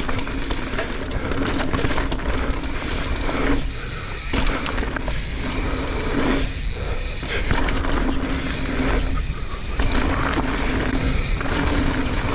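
Mountain bike descending a dirt trail at speed: knobby tyres rolling and skidding on dirt, with wind rush and rattle of the bike.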